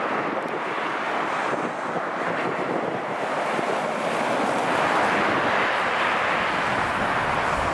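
Highway traffic passing close by: steady tyre and engine noise that swells as a vehicle goes past about five seconds in, with wind on the microphone.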